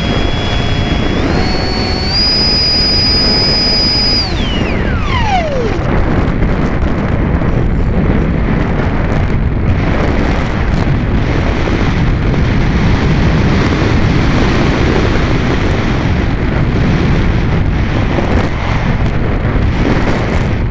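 Multiplex Easystar's electric pusher motor whining from on board, stepping up in pitch twice as the throttle opens, then cut about four seconds in, its whine sweeping down and dying away. After that, wind rushes steadily over the onboard camera as the plane glides down with the motor off.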